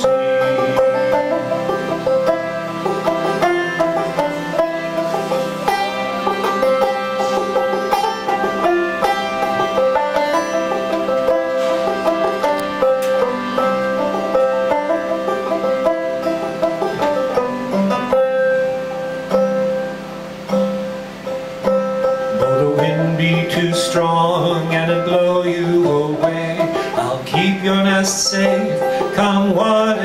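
Banjo picking a melody over the steady, held chords of a harmonium: an instrumental break in an acoustic folk song.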